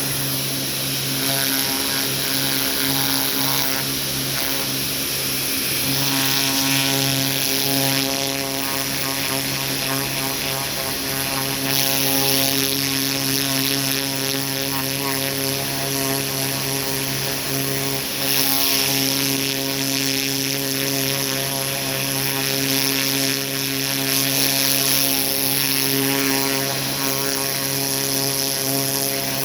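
Pressure washer with a turbo nozzle running steadily, its motor hum under the hiss of the water jet spraying a turkey skin. The spray hiss swells and fades several times as the jet is worked across the skin.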